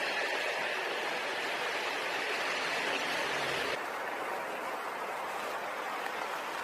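Steady rush of water. It drops a little and changes character abruptly about four seconds in.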